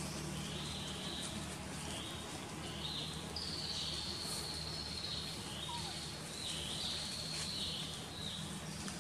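Forest insects buzzing in repeated high pulses about a second apart, with one longer held buzz around the middle, over a low steady hum.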